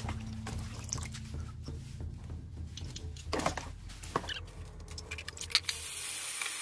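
Rinsing brined mango slices: a stainless wire strainer scoops them out of water and tips them into a steel bowl, with water splashing and dripping and the strainer clicking and knocking against the bowls. Near the end a steady hiss of water sets in.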